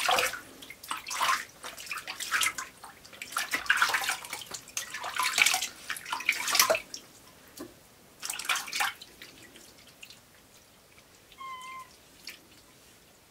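Water scooped by hand and splashed over a wet cat sitting in an enamel basin, in repeated splashes through the first several seconds and once more a little later. Near the end the cat gives one short meow.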